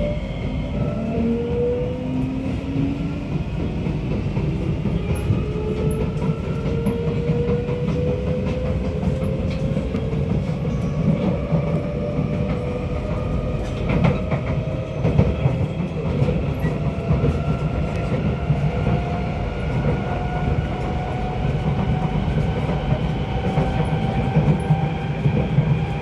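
Kawasaki Nippon Sharyo C751B metro train heard from inside the car as it accelerates: traction motor whine in several tones rising slowly in pitch over a steady wheel-and-rail rumble. The rumble is broken by scattered knocks from wheels worn flat.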